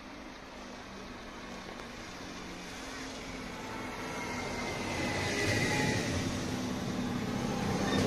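Czech Railways RegioSpider (Stadler RegioShuttle RS1) diesel railcar approaching and running past, its engine hum and wheel noise growing steadily louder as it nears, with a high-pitched squeal about halfway through.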